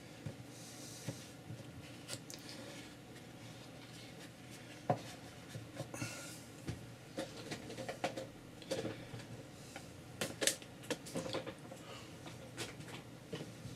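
Irregular light taps, clicks and rustles of boards and paper being handled and pressed into place on a work table, sparse at first and getting busier about five seconds in.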